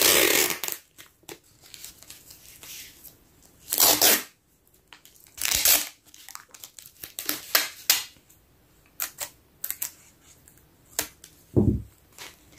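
Clear adhesive tape being pulled off its roll in several short rasping pulls, with paper rustling and small taps between. A dull thump comes near the end.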